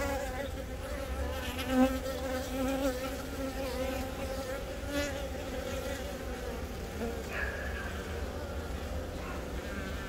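Honeybees buzzing on the brood comb: a steady, slightly wavering hum of many bees.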